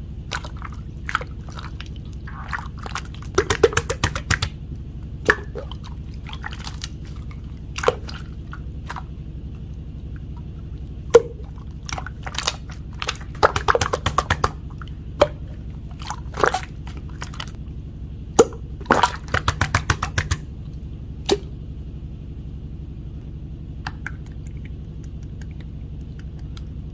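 Slime being pressed and folded by hand, giving irregular sticky pops and clusters of rapid crackling clicks, over a steady low hum. The clicking stops a few seconds before the end.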